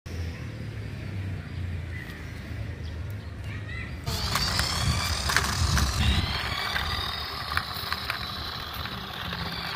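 Toy RC cement mixer truck driving, its small electric motor and gears giving a high whine with scattered clicks. It starts abruptly about four seconds in, over a low rumble.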